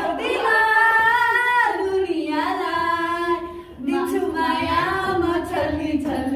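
A woman's voice singing a melody in long held notes, with little or no accompaniment.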